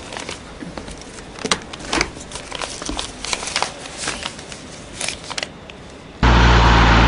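Paper rustling and small clicks of things being handled on a desk, in short scattered bursts. About six seconds in, it cuts suddenly to a loud, steady car engine hum heard from inside the cabin.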